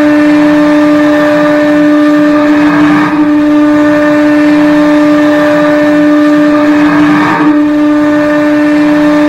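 St. John's IceCaps hockey goal horn blowing one long, steady, low blast.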